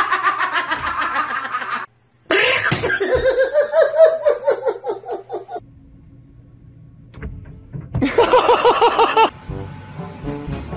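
People laughing in rapid pulsing bursts, broken by a quieter stretch of low steady hum partway through.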